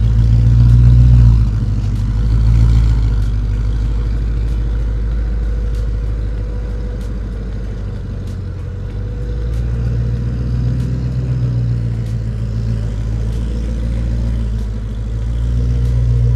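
Supercharged V8 of a 2023 Ford Mustang Shelby GT500 running through its quad-tip exhaust as the car crawls away at low speed, a steady low rumble with light throttle swells about a second in and again past the middle.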